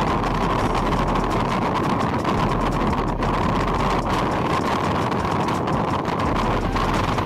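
Passenger train running at speed, heard from aboard: a steady rumble of the wheels on the rails mixed with wind noise.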